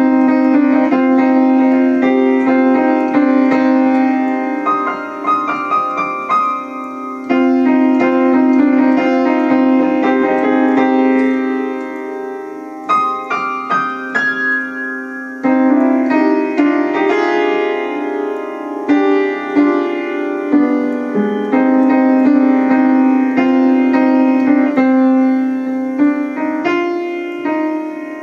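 Piano playing a dense, fast-moving piece slowed down, with quick runs of notes over held chords in the middle register; the phrases break off and start again a few times.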